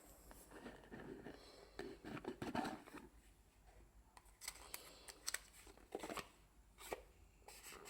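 Faint rustling and crinkling of a card deck's box and paper packaging being opened and handled, then several light, sharp taps and clicks in the second half.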